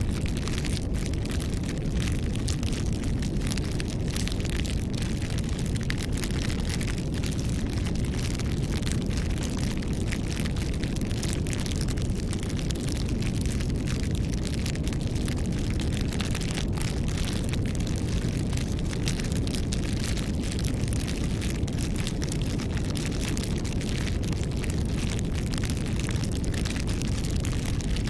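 Campfire burning, with a steady low rumble under constant small crackles and pops.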